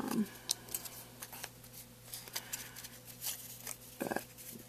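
Rustling and light clicks of craft flower petals being handled and shifted by hand on a tabletop, with a few stronger handling knocks near the start and about four seconds in.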